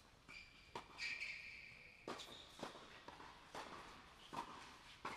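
Tennis rally on an indoor hard court: sharp racquet strikes and ball bounces every half second to a second, six in all, with high squeaks of sneakers sliding on the court.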